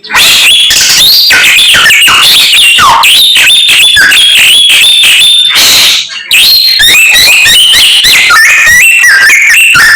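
Chinese hwamei (samyong) singing loudly in a continuous stream of rapid, varied whistled phrases, with one brief pause about six seconds in.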